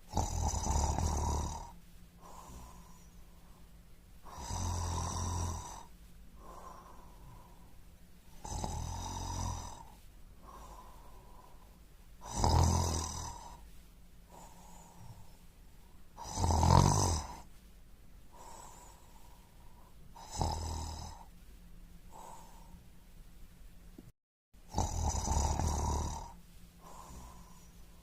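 A person snoring, one loud snore about every four seconds, seven in all, with a fainter breath sound between the snores. There is a very short break in the sound near the end.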